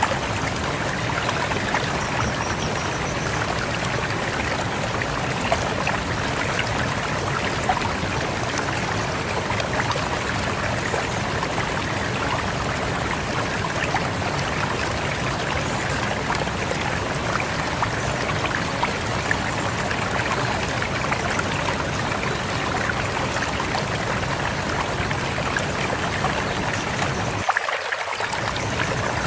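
Rushing river water flowing steadily, an even rush of water from low to high pitch. The deep low part of the rush drops out for under a second near the end.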